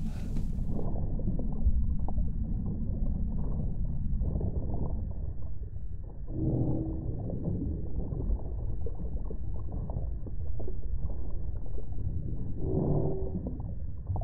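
Low, muffled rumbling drone from the film's sound design, with a short crackle at the start and two brief, low moaning tones about six and a half and thirteen seconds in.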